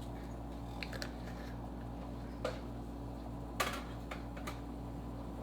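A few light, scattered clicks and taps from a spice container being handled while red pepper flakes are added, over a steady low hum.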